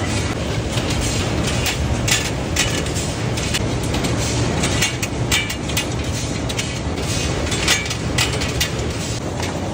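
Box-making factory machinery running: a steady low hum with irregular clacks and knocks.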